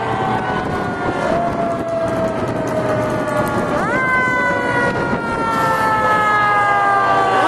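Fire truck siren wailing: a slow falling pitch, a quick rise about four seconds in, then another slow fall, over the steady noise of the passing fire trucks.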